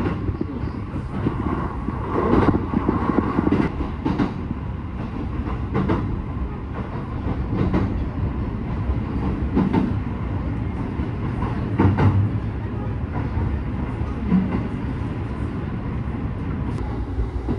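Running noise of a JR Joban Line electric train heard from inside the car: a steady low rumble at speed, with the wheels knocking over rail joints every couple of seconds.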